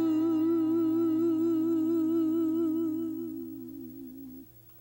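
The end of a gospel song: one long held note with steady vibrato over a low sustained bass note. It fades away over the last couple of seconds.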